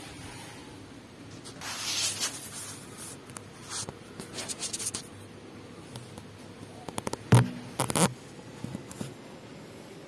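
Handling noises: scratchy scraping and rustling, then a cluster of sharp clicks and knocks about seven seconds in.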